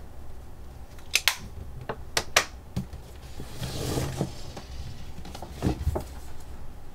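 A few sharp clicks and taps of small objects handled on a desk, then a stiff paper shopping bag rustling as it is pulled over and opened, followed by more light taps.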